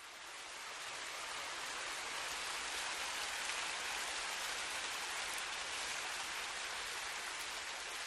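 Steady rushing of falling water, a waterfall sound that swells up over the first second and then holds even.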